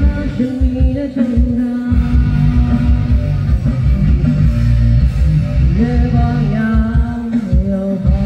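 A woman singing into a microphone over loud backing music with a heavy low beat, amplified through stage speakers. She holds long notes.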